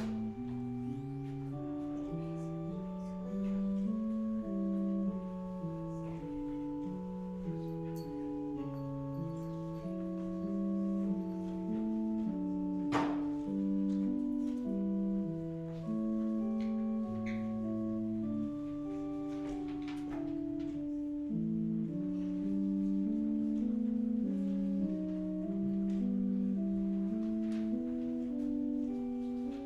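Organ playing slow church music in several parts, its chords held steadily and moving one note at a time. A single sharp knock sounds about halfway through.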